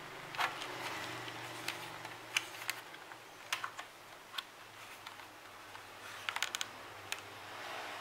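Irregular sharp plastic clicks and taps from an AKKO 3084 mechanical keyboard being handled and turned over in the hands, with a quick run of about five clicks near the end.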